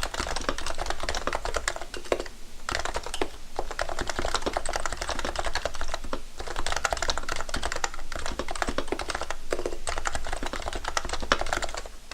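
Fast, continuous typing on a REALFORCE for Mac keyboard with Topre electrostatic capacitive switches: a dense run of keystrokes that breaks off briefly three times.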